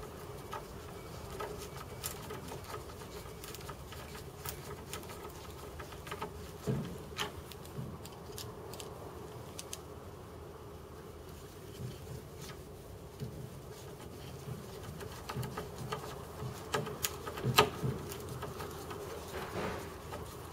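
Hand screwdriver turning screws into a sash cord cleat in a wooden sash window frame: scattered small clicks and creaks, busiest around seven seconds in and again from about fifteen to eighteen seconds, the sharpest one near the end. A steady low hum runs underneath.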